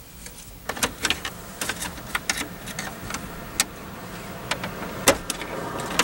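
Irregular sharp clicks and knocks of the tilt-wheel lever being worked off a 1996 Chevrolet Suburban's steering column, where it is held on by a tight clip; the loudest knock comes about five seconds in.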